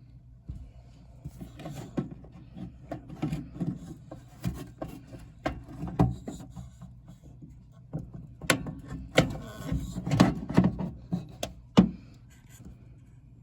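Hands working on a condensing furnace's drain and hose fittings: scattered knocks, clicks and rubbing, busiest in the second half, over a steady low hum.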